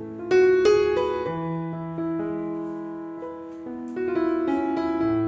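Background piano music: soft held chords, with a few brighter notes struck near the start and again near the end.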